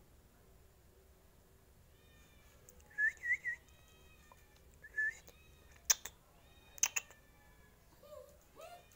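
Small dog whining in short high-pitched cries, with three quick sharp yelps about three seconds in and more whines after, the whining of a dog begging to be fed. Two sharp clicks come near the middle.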